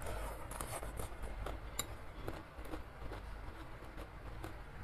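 Close-miked eating of instant noodles: a brief slurp as a forkful goes into the mouth, then chewing with scattered wet mouth clicks and a few sharp clicks.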